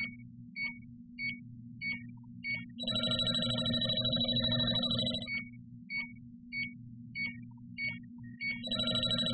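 Refrigerant leak detector (JB Industries LD-5000 Prowler) sounding its audible alarm as its probe picks up refrigerant at a cap. It gives short beeps about every half second, which twice run together into a continuous rapid alarm tone: once from about three to five seconds in, and again near the end. A steady low hum sits underneath.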